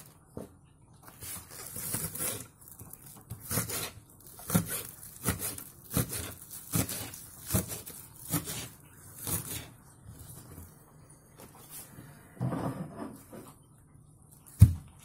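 Knife chopping green onions on a cutting board: a series of short, crisp cuts, one or two a second, through most of the first ten seconds. A single louder thump on the board near the end.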